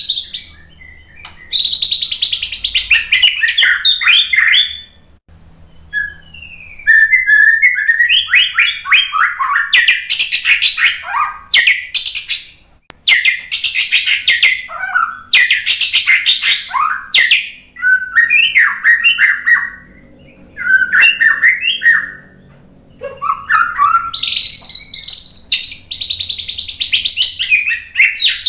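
White-rumped shama (murai batu) singing loudly: a run of varied phrases of quick whistles, trills and pitch glides, each a few seconds long, with short pauses between them.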